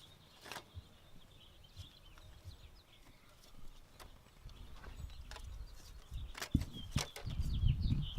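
Scattered light clicks and knocks of hands and parts being handled at the engine as the head gasket goes on, with small bird chirps in the background. Near the end come a couple of sharper knocks and a louder low rumble.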